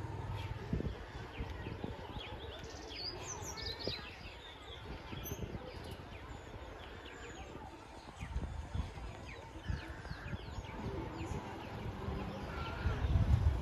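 Outdoor ambience with small birds chirping and twittering, busiest in the first few seconds. Under the chirping are faint background voices and low rumbling swells toward the end.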